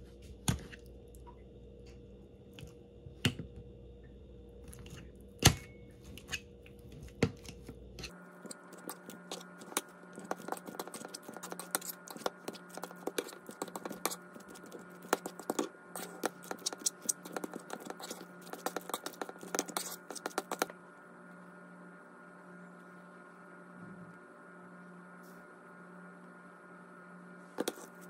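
A metal fork mashing boiled eggs against a ceramic bowl: a few scattered taps at first, then about twelve seconds of rapid clinking and scraping, a quiet spell of several seconds, and the tapping starting again at the end.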